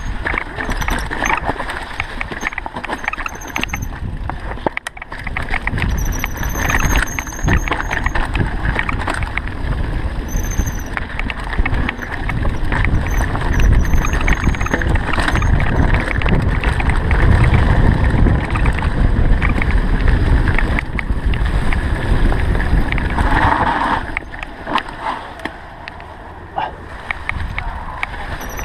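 Mountain bike on a trail: steady rumbling from the tyres and from wind on the microphone, with short high-pitched squeals from the brakes several times in the first half.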